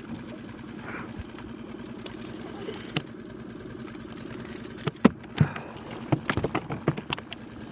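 Small boat motor idling steadily. From about five seconds in, a quick series of sharp knocks and clicks sounds over it.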